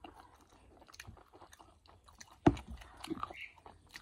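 Close-up chewing of crisp pani puri shells: small crunches and wet mouth clicks, with one louder thump about two and a half seconds in.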